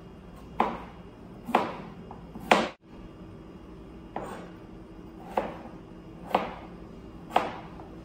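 Kitchen knife slicing through a raw potato and knocking on a cutting board: seven separate cuts, roughly one a second.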